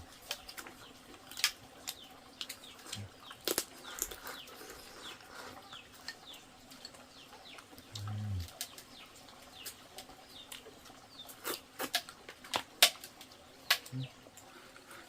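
Chopsticks, spoons and bowls clicking and clinking irregularly during a meal, with a brief low murmur about halfway through.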